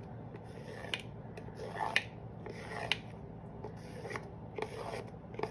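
Crayon drawing lines on the cardboard bottom of a box, in short strokes about once a second.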